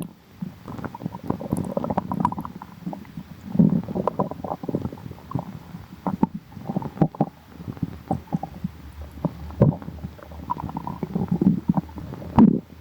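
Human stomach growling: an irregular run of low gurgles and rumbles broken by many short pops, with louder swells about 3.5 s in and again near the end.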